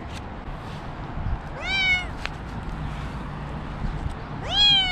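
Domestic cat stuck up a tree meowing twice: a short meow about one and a half seconds in, then a longer, drawn-out meow near the end.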